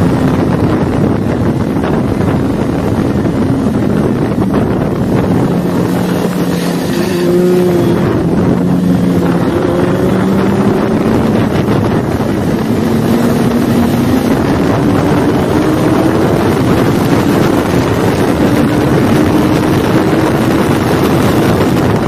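Kawasaki Ninja 400's parallel-twin engine running hard at speed, heard under heavy wind rush on the microphone. The engine note falls slightly at first and breaks and shifts in pitch about seven seconds in. It then climbs steadily through the second half.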